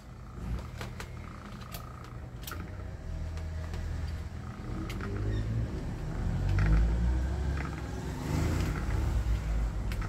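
Ventisol table fan's electric motor running without its blade, a low steady hum that grows somewhat louder. A few sharp clicks and knocks come from the plastic motor housing being handled.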